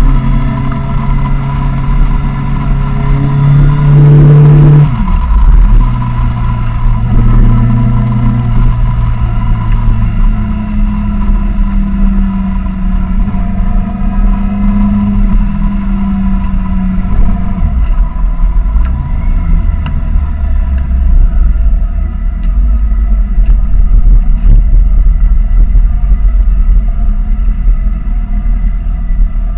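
Kawasaki Ninja 1000 inline-four with a Vance & Hines exhaust, heard on board while riding: the engine note climbs under throttle and drops sharply about five seconds in, holds steady at cruising speed, then falls lower after about eighteen seconds as the bike eases off. The recording is loud and distorted in the low end, because the action camera's microphone is loose inside the camera.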